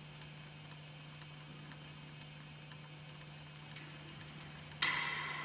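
Steady low hum under quiet room tone, then near the end a single sharp metallic clink that rings on and fades over about a second.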